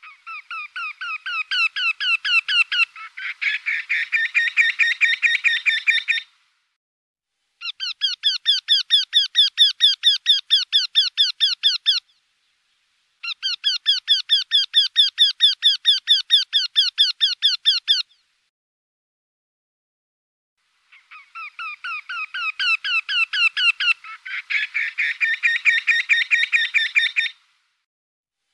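Eurasian wryneck (Jynx torquilla) calling: four long series of quickly repeated high notes, each lasting several seconds, with short pauses between them. The first and last series start quiet and swell, and further notes overlap them partway through.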